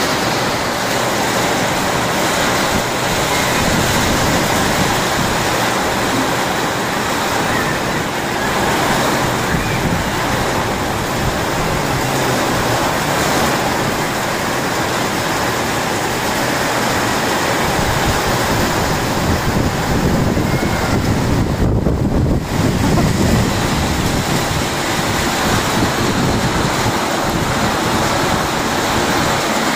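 Heavy rain pouring steadily, with gusts of wind through the trees.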